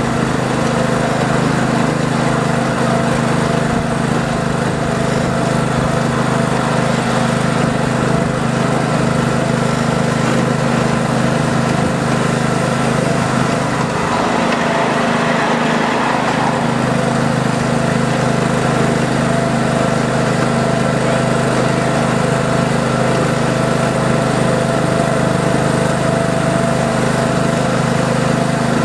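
Ride-on miniature railway train running along the track: a steady mechanical drone from the train in motion, with a brief rushing swell about halfway through.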